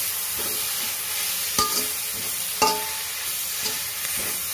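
Chopped fenugreek leaves sizzling in hot oil in a kadai as a metal spatula stirs and tosses them, the greens wilting in their own released water. The spatula strikes the pan twice with a short ringing clang, about a second and a half in and again a second later.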